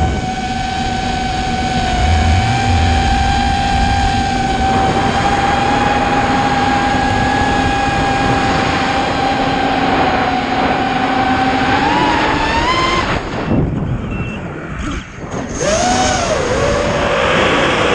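FPV racing quadcopter's electric motors whining at a steady pitch. The pitch climbs about twelve seconds in as the throttle goes up, then the whine cuts back and dips for a couple of seconds before returning with a wavering pitch.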